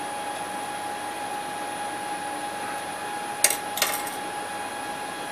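Two sharp clicks about half a second apart, a little over three seconds in: keys pressed on the CNC control computer's keyboard. Under them runs a steady hum with a constant high whine.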